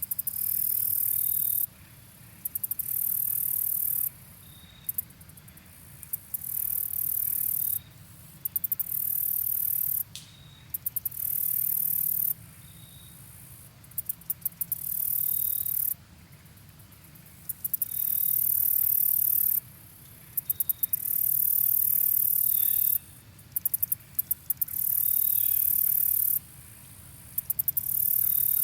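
Insect, cicada-like, singing in high-pitched buzzing bursts of one to three seconds. Each burst opens with a quick stutter of clicks and cuts off suddenly, then repeats after about a second's pause. Faint short chirps repeat about once a second underneath.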